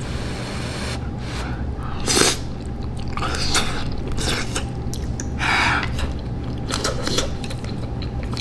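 A person chewing a mouthful of noodles close to the microphone, with several short slurps.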